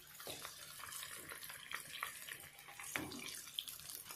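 Samosas deep-frying in hot oil: a steady sizzle with fine crackles, and a couple of light knocks as a metal slotted spoon turns them in the pan, about a third of a second in and again about three seconds in.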